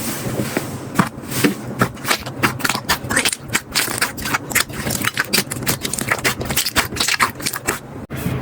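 Slime being squeezed and pressed by hand, giving a quick, irregular run of sticky crackles, clicks and pops.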